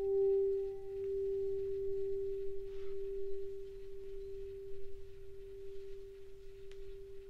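Handheld Tibetan singing bowl ringing with one steady low hum. The hum pulses for about the first second while the mallet is still going round the rim, then rings on alone and slowly fades. A fainter higher overtone dies away after a couple of seconds.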